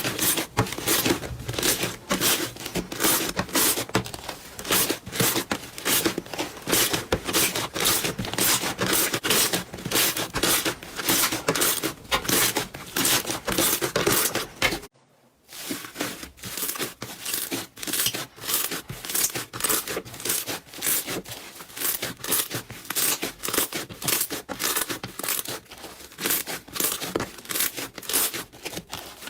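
Slime being squeezed and worked by hand, giving dense, rapid crackling and popping. The sound breaks off for a moment about halfway through, then starts again.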